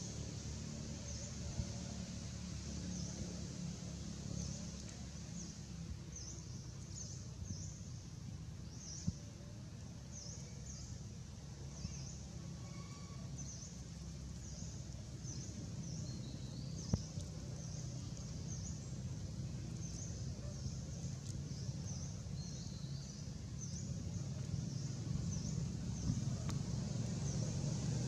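Outdoor ambience: a steady low rumble under short, high chirps that repeat about once a second, with a few faint ticks.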